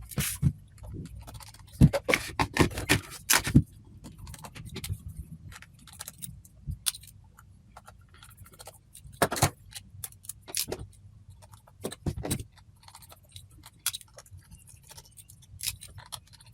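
Small precision screwdriver working the tiny screws of a camera body: scattered light metallic clicks and clinks, with a quick run of them a couple of seconds in and a few single louder clicks later.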